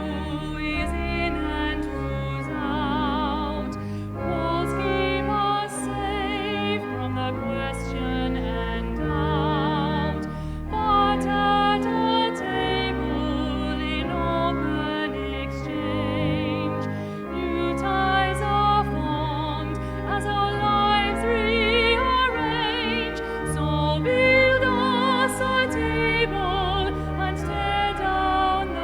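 Communion hymn: a singer with a strong vibrato sings a slow melody over sustained organ chords.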